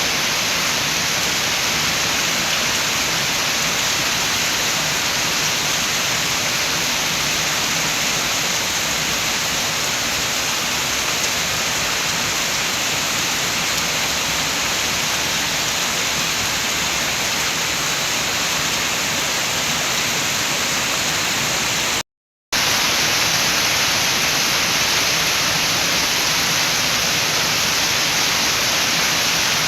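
Steady rain with wind: a constant, even rushing hiss with no separate drops or gusts standing out. About 22 seconds in, it cuts out to silence for under half a second, then resumes unchanged.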